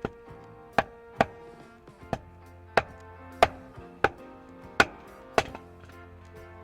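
Background music with steady held notes, cut through by a run of about nine sharp knocks at an uneven pace, roughly one every two-thirds of a second.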